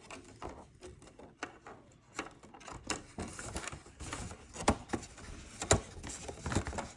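Handling of a 3D-printed plastic sheet-film developing reel: scattered small plastic clicks and taps with light rubbing, a few sharper clicks in the second half.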